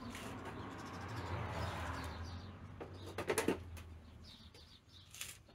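Hands rummaging through parts and packaging in search of broken clutch pieces. A rustling, shuffling sound for the first couple of seconds is followed by a few sharp clacks and knocks a little past halfway, with a couple of lighter clicks near the end.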